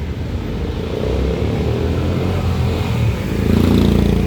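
Road traffic: a motor vehicle's engine rumbling as it drives past close by, growing louder about a second in and loudest near the end.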